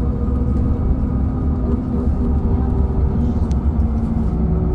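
Cabin noise of a LiAZ 5292.67 city bus under way: the YaMZ-53624 compressed-natural-gas engine and drivetrain hum over a steady low road rumble. The hum drops slightly in pitch about a second and a half in and again near the end.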